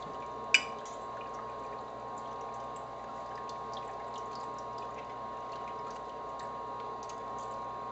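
A single sharp clink of metal cutlery against a ceramic plate about half a second in, with a few faint ticks after. Under it runs a steady appliance hum with a faint whine.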